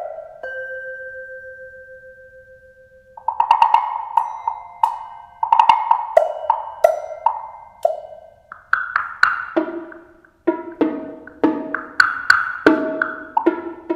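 Multi-percussion solo: a single struck note rings and fades for about three seconds, then quick mallet strokes on large wood blocks, joined in the second half by lower strokes on drums.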